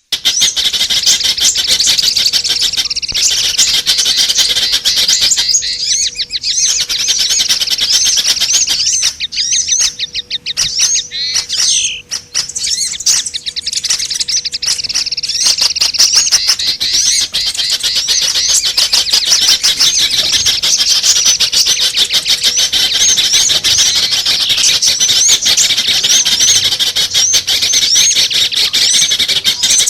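A dense, unbroken chorus of many small birds chirping and twittering in high, rapid calls and trills: a mixed small-bird lure recording (pikat) played to attract small birds.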